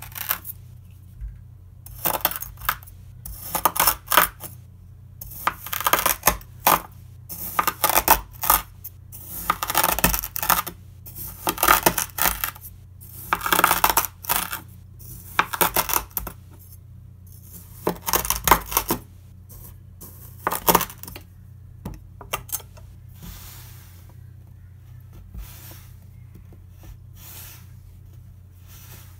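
A Farberware chef's knife slicing through packed kinetic sand and hitting the wooden cutting board, a crisp crunch with each cut, about one cut a second. After about 21 seconds the cutting stops and the sand is handled and crumbled, giving softer, quieter crumbling sounds.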